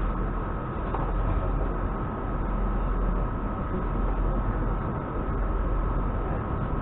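Steady running noise of a moving suburban electric train heard from inside the carriage: a continuous low rumble of wheels on rails, with a thin constant whine above it.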